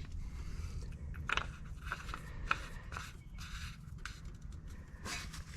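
Light, scattered clicks and scrapes of small parts being handled, over a steady low hum.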